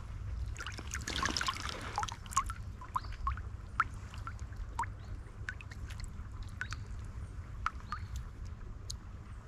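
Water splashing briefly about a second in, then scattered small drips and plinks of water, over a steady low rumble.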